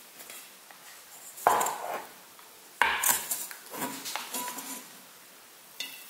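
A metal cake pan knocking and clattering on a wooden cutting board as it is turned upside down and lifted off a baked pie, with two sharp knocks, the first about one and a half seconds in and the second near three seconds, then lighter clatter.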